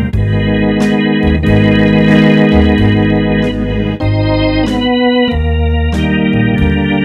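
Roland FR-4X digital accordion playing a slow melody with held notes over a bass line that changes note every second or so.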